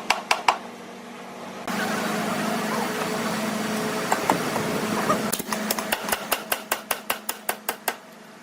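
Woodworking shop sounds: a few sharp taps, then a power tool running steadily for about three and a half seconds, then a quick, even run of sharp taps, about five a second.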